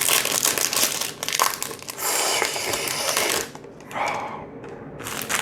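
Foil trading-card booster pack being torn open and its wrapper crinkled and crumpled, a dense crackling for about three and a half seconds, then quieter with one short rustle.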